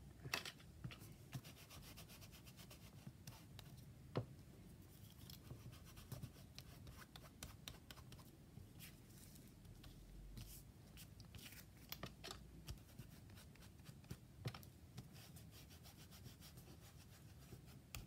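Faint scratching and rubbing of a round ink blending tool worked over embossed wallpaper tags, with a few sharper ticks as the tool and tags are handled.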